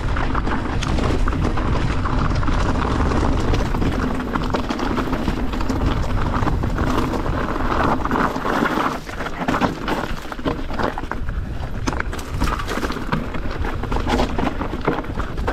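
Santa Cruz Megatower mountain bike ridden down a rocky singletrack: tyres crunching over loose stones with a constant fast clatter of chain and frame, and wind rumbling on the camera microphone. The sound eases briefly about nine seconds in.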